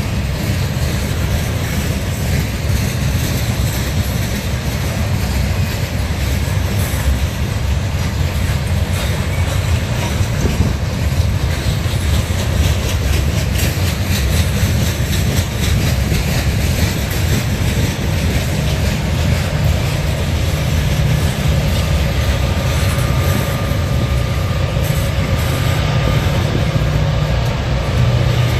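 Loaded Norfolk Southern coal hopper cars rolling past at close range: a steady, heavy rumble with rapid wheel clicks over the rail joints. Near the end the diesel locomotives at the rear of the train come closer and their engine sound grows.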